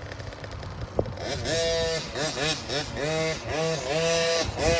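KTM 50 single-cylinder two-stroke dirt bike engine revving up and falling back again and again as it is ridden, starting about a second and a half in. A single sharp knock comes just before it.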